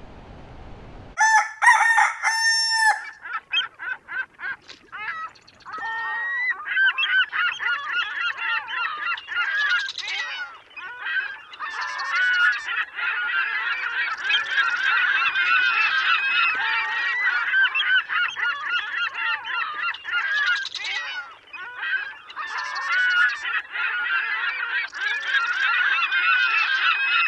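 A flock of birds calling, many honking, wavering calls overlapping in a dense continuous chorus, with a few louder single calls in the first few seconds.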